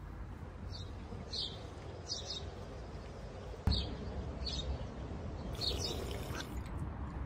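Outdoor ambience: a bird chirping in short high calls about once a second over a low steady rumble, with a single sharp knock about halfway through.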